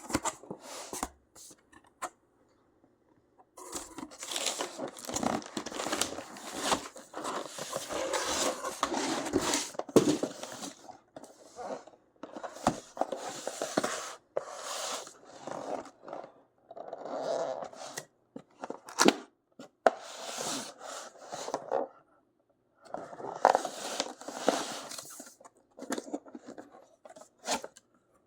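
Packaging being opened and handled by hand: cardboard and wrapping rustling and scraping in irregular bursts, with sharp clicks and short pauses between.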